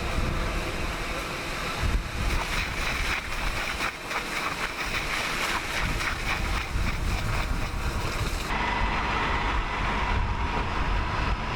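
Wind buffeting the microphone over a steady outdoor rumble. About eight and a half seconds in, the sound turns duller and a steady whine starts.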